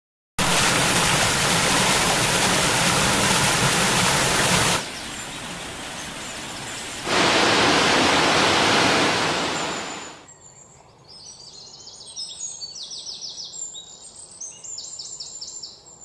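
Loud, steady rush of white water tumbling over boulders in a rocky stream, dipping quieter for about two seconds and then coming back before fading out about ten seconds in. After that, birds chirping in short, high trills.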